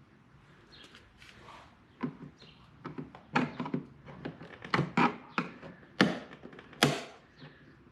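A flat-blade screwdriver prying at the white plastic retaining clips of a Volvo 740 door panel. There is a series of sharp clicks and knocks as the blade and panel are worked, most of them from about two seconds in until near the end.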